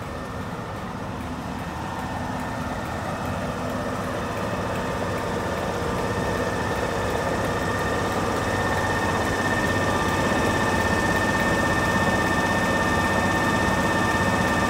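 A BR Class 45 'Peak' diesel locomotive drawing slowly up alongside behind its coaches and coming to idle, its engine drone growing steadily louder with a steady high whine.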